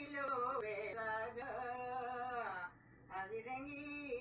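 A woman singing a Kumaoni ritu raina folk song in long, drawn-out notes that bend in pitch. She breaks off briefly for a breath about three seconds in, then goes on.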